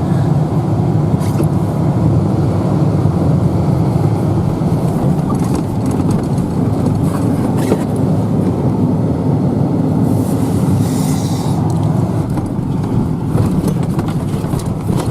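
Vehicle driving over rough, bumpy ground: a steady engine and road rumble with a few sharp knocks and rattles, and a short hiss about ten seconds in.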